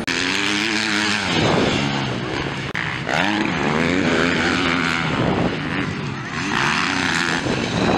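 Motocross bike engines revving, their pitch repeatedly climbing and dropping as the throttle is opened and closed.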